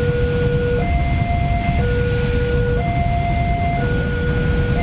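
Railway level-crossing warning alarm from the loudspeaker on the crossbuck, alternating two tones, low then high, about one second each, which signals that a train is on the crossing. Under it is the steady heavy rumble of a container freight train rolling through.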